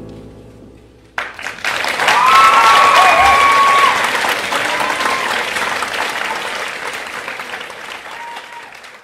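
The last piano chord dies away, then an audience breaks into applause about a second in, with a few cheers, and the clapping gradually fades toward the end.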